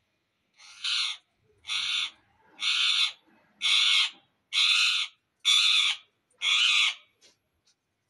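Indian ringneck parakeet screeching: seven harsh calls at an even pace of about one a second, growing a little louder over the first few.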